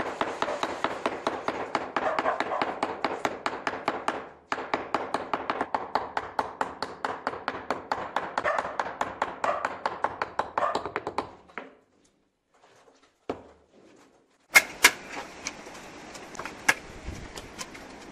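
A bush hammer pecking rapidly and evenly at a carved stone piece, roughening the texture of its recessed panels. The tapping stops about two-thirds of the way through, and after a short silence a few separate sharp knocks follow.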